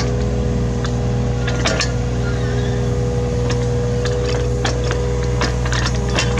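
Hitachi Zaxis 33U mini excavator's diesel engine running steadily under working load, with a steady high whine over the low engine hum. Sharp knocks and clanks come several times, as the machine works the soil.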